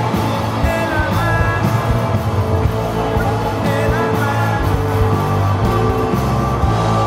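Rock music with a steady beat and a strong bass line, with short sliding notes now and then above it.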